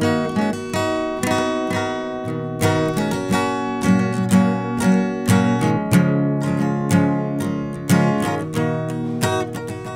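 Background music: an acoustic guitar playing plucked and strummed notes at an even pace, about two a second.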